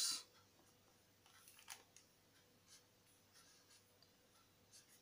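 A felt-tip marker writing on paper, a few faint, short scratching strokes.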